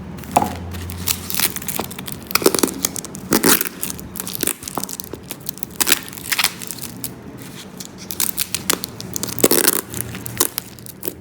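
Irregular crinkling and crackling from something being handled, with many sharp clicks scattered through, and a low hum for about the first second and a half.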